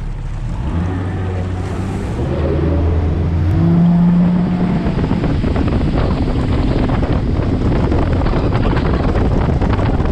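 Bass boat's outboard motor speeding up, its pitch and loudness climbing over the first four seconds, then running steadily at speed with wind buffeting the microphone.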